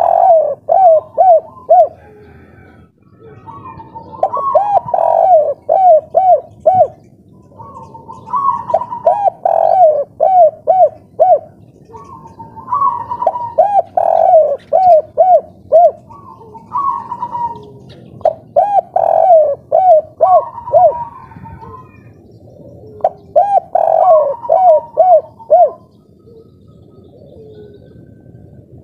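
Spotted dove (derkuku) singing its 'kuk 3' song, cooing vigorously. A phrase comes roughly every four seconds: a higher opening note, then a quick run of four or five short coos.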